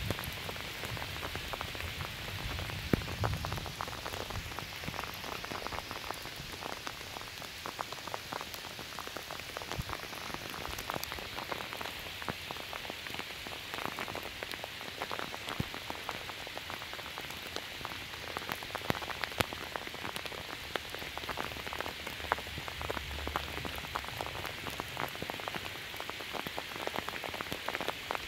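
Steady rain falling, with many individual drops ticking close by over an even hiss. A low rumble sounds in the first few seconds.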